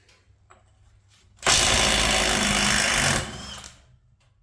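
Milwaukee M18 Fuel half-inch mid-torque cordless impact wrench hammering on a drive shaft nut torqued to over 300 Nm. It starts about a second and a half in, hammers loudly for under two seconds and winds down as the nut breaks loose.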